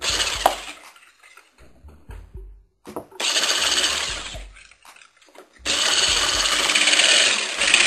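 Electric hand mixer with a whisk attachment beating flour into cake batter in a bowl, switched on in three runs: a short burst at the start, another a little before halfway, and a longer run through the last two seconds or so.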